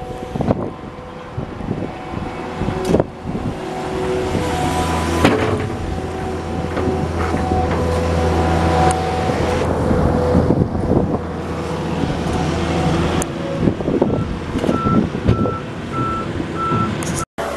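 Skid steer loader engine running under load with its hydraulics working, with a few sharp knocks early on. A backup alarm beeps repeatedly in the last few seconds.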